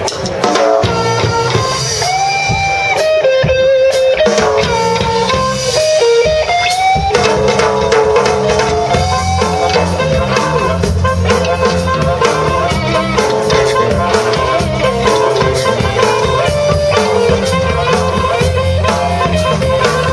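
Background music with a steady beat and a melodic lead line.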